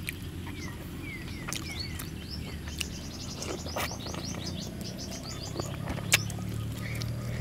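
Birds chirping in the surroundings: series of short, quickly falling chirps, thickest around three to four seconds in. A few sharp clicks stand out over them, the loudest about six seconds in.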